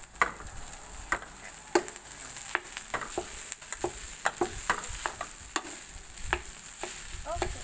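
Vegetables frying in a pan with a steady sizzle, while a metal spoon scrapes and clinks again and again as cooked rice is scooped off a plate into the pan.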